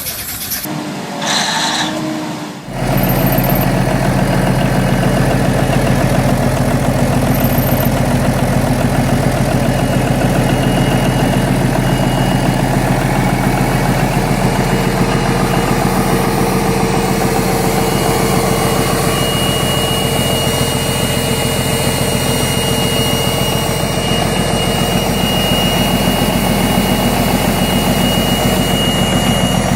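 Large engine running steadily at an even speed, setting in abruptly about three seconds in after a brief different sound.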